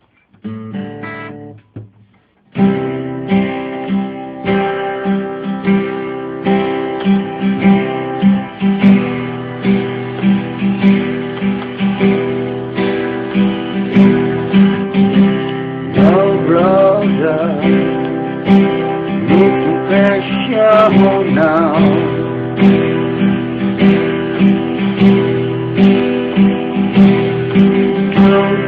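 Instrumental song intro played on plucked and strummed guitars. After a short phrase and a brief pause, the full part comes in about two and a half seconds in, over a steady repeating low-note rhythm. Midway, a bending, gliding melody line rises and falls for several seconds.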